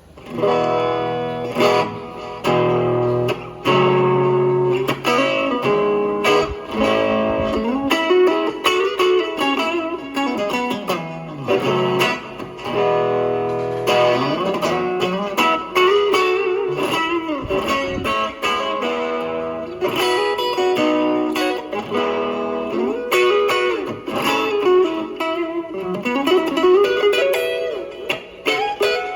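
Electric guitar played through a Fender Champion 20 practice amplifier. It opens with held chords and moves into lead lines with string bends.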